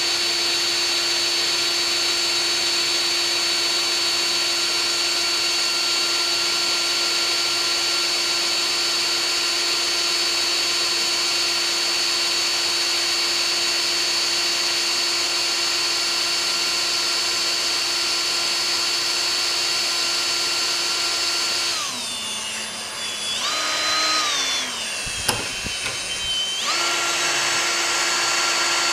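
Hand drill running a carbide annular cutter into solid cast iron, its motor whining at a steady speed. About three-quarters of the way through, the motor slows and its pitch drops and wavers for a few seconds, with one sharp click. It then speeds back up to full speed.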